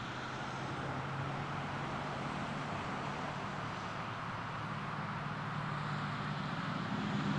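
Steady low hum of a motor vehicle engine over a background hiss, slowly growing louder.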